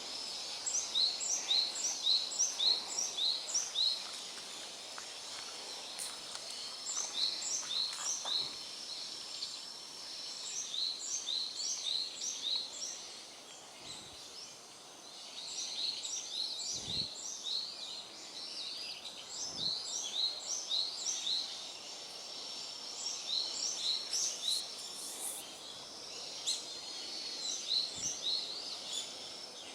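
Small birds calling in repeated bursts of about half a dozen quick, sharp high notes. Each burst lasts a couple of seconds and comes again every few seconds, over a faint steady high tone.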